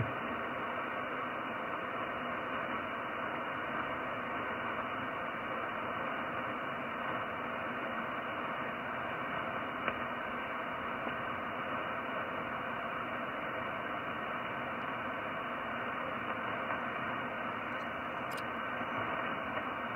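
Steady hiss of band noise from a shortwave amateur transceiver's speaker, the receiver tuned to 15-metre upper sideband, with no voice coming through. The hiss is cut off sharply above the narrow sideband filter, with a couple of faint clicks.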